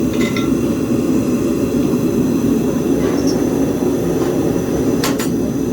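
Gas forge burner running with a steady, even roar. A couple of brief sharp metallic clicks about five seconds in.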